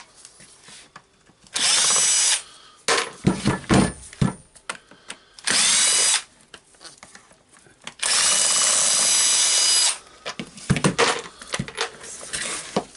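Power screwdriver with a Phillips bit running in three short bursts to back out the handle screws of a rotary hammer's housing: a steady motor whine, the last burst about two seconds long. Between the bursts come small knocks and rattles as the screws and tool are handled.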